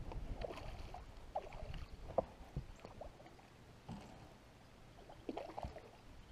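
Irregular small splashes and gurgles of water at the surface as a hooked largemouth bass swirls and thrashes beside the boat, with a sharper splash about two seconds in and a cluster of splashes near the end.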